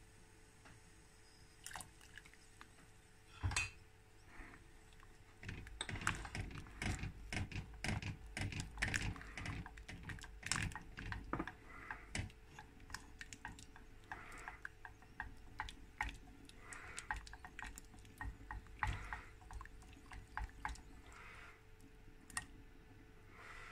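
Wooden spoon stirring water in a stainless steel pot, swirling it into a vortex, with repeated irregular knocks of the spoon against the pot and swishing water from about five seconds in until near the end. One sharper knock comes about three seconds in.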